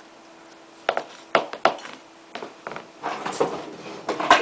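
Handling noise: a few separate knocks, then denser rustling and scraping with louder knocks near the end, as the camera is moved and set down low on the carpet.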